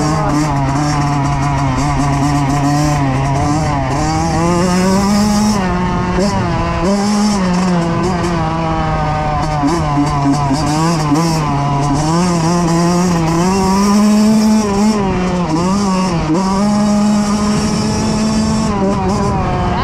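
Kawasaki KX85's two-stroke single-cylinder engine running under way, its pitch climbing and dropping again and again as the throttle is worked through the gears, with rushing wind on the microphone.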